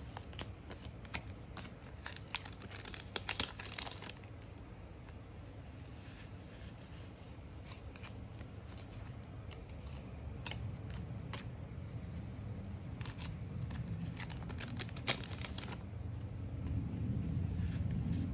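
Trading-card booster packs being handled: foil wrappers crinkling and tearing, and cards sliding and tapping, in scattered clusters. A low rumble of an airplane passing overhead grows louder over the last few seconds.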